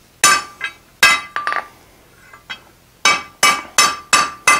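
Hand hammer striking a square mild steel bar on a steel anvil, each blow ringing out brightly. Two blows, each with a lighter follow-up tap, then after a pause a steady run of blows about three a second.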